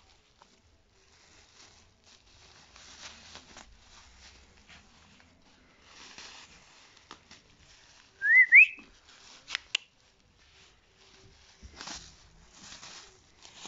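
A plastic bag rustling and crinkling in bursts as cats bat at it and pull it about. About eight seconds in, a short, high whistle-like tone rises in a zigzag; it is the loudest sound, and a few sharp clicks follow it.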